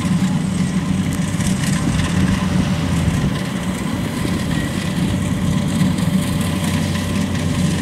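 Engine of a tracked rice carrier, loaded with sacks of paddy, running steadily as it climbs a slope.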